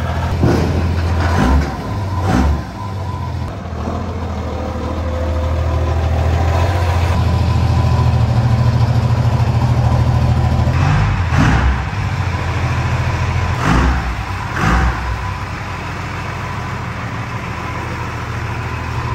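Twin-turbo 12-valve Cummins inline-six diesel in a second-gen Dodge Ram running as the truck is driven. Its low drone swells for several seconds in the middle, and a handful of brief sharp sounds cut in over it.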